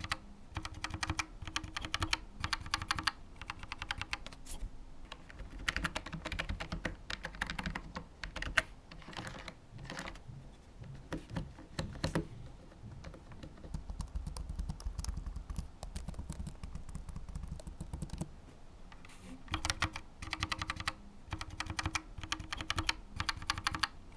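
Typing on a Keychron K1 version 4 low-profile mechanical keyboard: rapid key clicks in bursts, with short pauses between runs.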